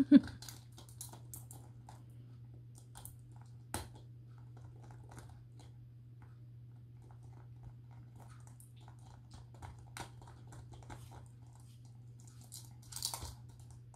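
A small Morkie puppy chewing and biting a plastic toy: scattered small clicks and crunches of teeth on plastic, denser about 13 seconds in. A brief loud low-pitched sound right at the start.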